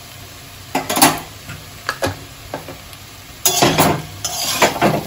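A spatula stirring and scraping a thick curry in a cooking pan: single scrapes and clinks about a second and two seconds in, then a denser run of scraping strokes from about three and a half seconds.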